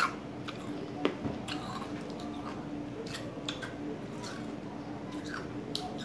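Scattered light crinkles and clicks from handling a plastic freeze-pop sleeve and eating the ice pop, over a faint steady hum.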